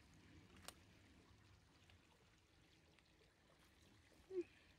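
Near silence: the faint, steady trickle of a small woodland stream, with a light click under a second in and a short pitched sound near the end.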